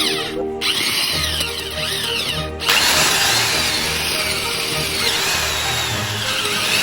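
Earth auger (post hole digger) running and boring into the ground, with a wavering high whine; the machine noise grows louder about three seconds in. Background music plays under it.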